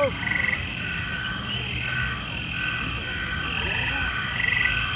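Frogs calling in short, repeated trills, several overlapping, over a steady low background noise, with one brief sliding chirp right at the start.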